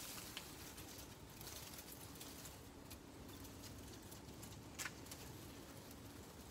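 Faint garden ambience with light scattered patter and small ticks, and a sharper tick about five seconds in.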